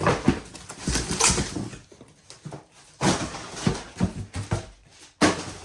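Rustling and clattering knocks of parts and packaging being handled, in two bursts with a short lull between them.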